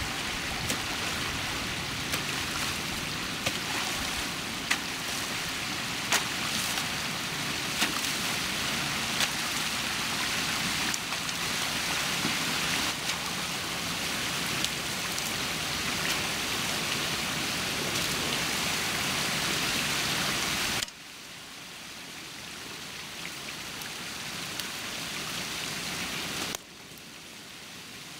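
Water rushing and trickling through a breach in a beaver dam as it is cleared, a steady hiss with occasional sharp clicks. The sound drops suddenly about 21 seconds in and again near the end.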